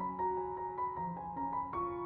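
Background music: a melody played on a keyboard, its notes changing every fraction of a second.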